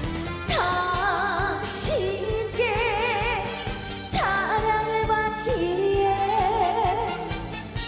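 A woman singing a Korean trot song into a microphone over a band backing track with a steady beat. About half a second in and again about four seconds in she swoops up into a note, and she holds long notes with wide vibrato.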